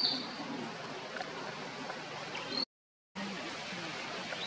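Steady outdoor background hiss of forest ambience, broken by a high, rising whistled call near the start and again at the end. The sound cuts out completely for about half a second in the middle.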